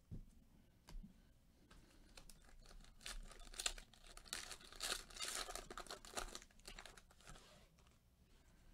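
Foil wrapper of a Panini Chronicles basketball card pack being torn open and crinkled, faintly. A couple of light clicks come first; most of the crinkling falls between about three and seven seconds in.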